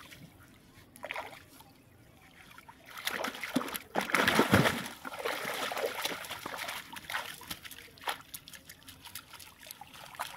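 Shallow water splashing and sloshing as a cast net is gathered by hand and hauled out, with water trickling and dripping from the mesh. The first few seconds are quieter; the biggest splash comes about four seconds in, followed by smaller irregular splashes.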